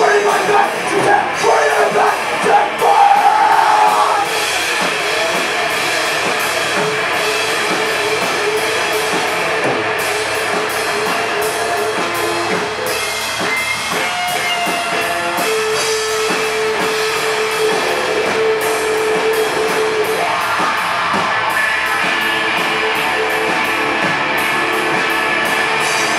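Rock band playing live: electric guitar, bass guitar and a drum kit with cymbals, an instrumental stretch without vocals.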